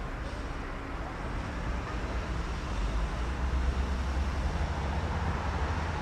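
City street traffic ambience: a steady low rumble and hiss of passing vehicles, slowly growing a little louder.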